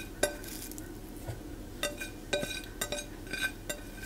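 Light, scattered clinks and taps of kitchenware, about eight short ringing ticks, as kale is picked off a plate by hand to load into a Nutribullet blender cup.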